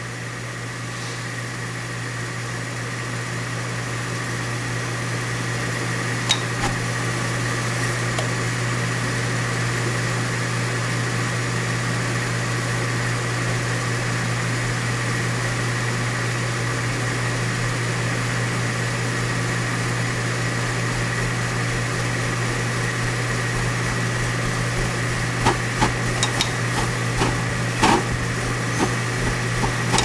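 Coleman CGU gas furnace running an ignition cycle with its vent blocked and its pressure switch bypassed, the conditions for flame rollout. A steady hum builds slowly over the first several seconds. A couple of sharp clicks come about six and eight seconds in, and a run of clicks follows in the last five seconds.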